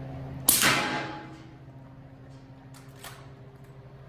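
One suppressed subsonic rifle shot from an 8-inch bolt-action 300 BlackOut firing 220-grain rounds through an FPM Gunworks Dirty D suppressor, about half a second in, its report dying away in the room's reverberation over about half a second; it meters at about 122 dB. A fainter sharp crack follows about two and a half seconds later, over a steady low hum.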